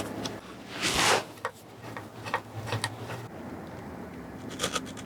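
Hand work on a bike in a workshop: a short scrape about a second in, then scattered light clicks and taps of tools and parts.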